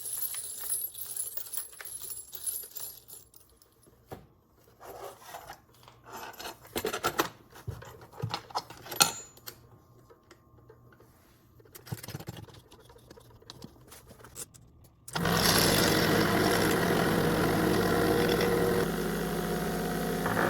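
Spent brass cartridge cases clinking as they are handled and loaded into a case tumbler; about fifteen seconds in, the tumbler switches on and runs with a steady hum.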